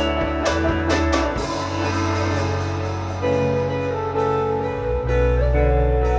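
Band music with no singing: drum hits during the first second or so, then sustained electric-guitar-like chords over a steady bass note, the chords changing a few times.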